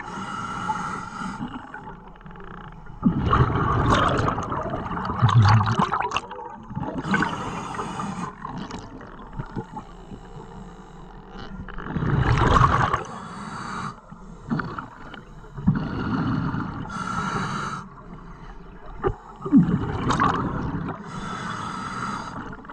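Scuba diver breathing through a regulator underwater: a hiss as each breath is drawn through the demand valve, then a louder bubbling rush as the breath is let out through the exhaust. The breaths come every four to five seconds.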